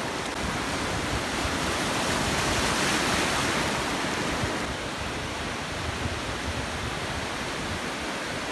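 Ocean surf: a steady rush of breaking waves and foaming water washing through the shallows. It swells a little in the first half and then eases slightly.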